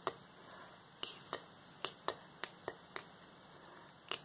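Fingernails tapping on the cover of a notebook: about nine sharp, irregular taps, with a pause before a last tap near the end.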